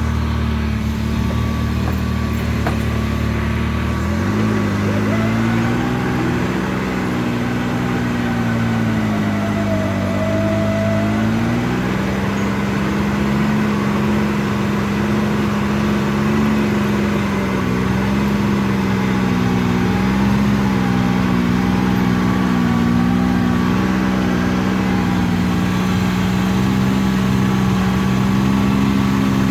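Can-Am Maverick X3 side-by-side's turbocharged Rotax three-cylinder engine running. About four seconds in the engine note changes, rises and falls for several seconds, then holds a steady pitch.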